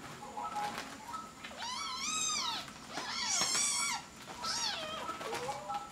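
Kittens mewing: high-pitched cries that rise and fall, three long ones about one and a half, three and four and a half seconds in, with shorter mews between.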